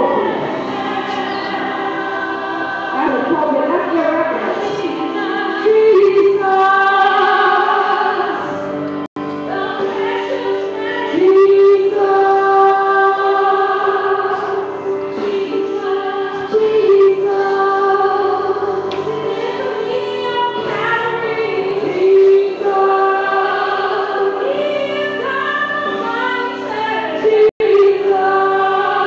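Church choir singing a gospel song, with long held notes. The sound cuts out for an instant twice, about nine seconds in and near the end.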